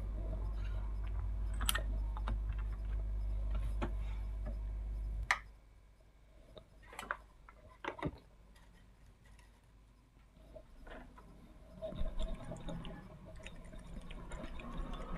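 Steady low electrical hum with light clicks of handling, cut off suddenly with a click about five seconds in as the powered TV panel is switched off; after that near silence with a few sharp clicks and knocks of tools and parts being handled on the bench.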